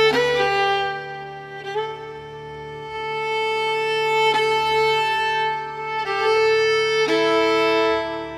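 Background music: a violin playing slow, long held notes, changing pitch only a few times.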